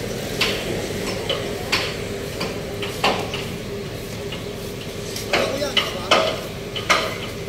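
Irregular sharp metallic clinks and knocks, about a dozen, some ringing briefly and clustered near the end, over a steady background hum.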